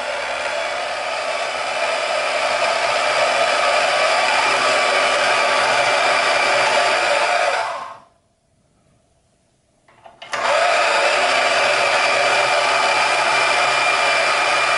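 Bauer 10-amp variable-speed deep-cut portable band saw running free with no cut, a steady motor whine, its trigger held on by the stand's re-bent switch lever. It stops about eight seconds in, winding down within half a second, and starts again with a click about two seconds later.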